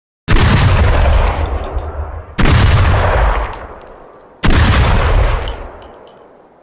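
Remington 870 12-gauge pump-action shotgun fired three times, about two seconds apart, each blast followed by a long fading echo with a few faint clicks in it.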